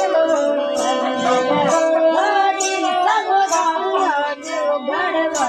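Bhopa folk song from Rajasthan: a voice singing a wavering melodic line over a steady instrumental drone, with a short high jingle marking the beat about twice a second.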